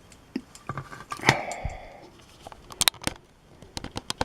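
Small metal clicks and taps from a picked-open lock and lockpicking tools being handled, with one louder metallic clink about a second in that rings briefly.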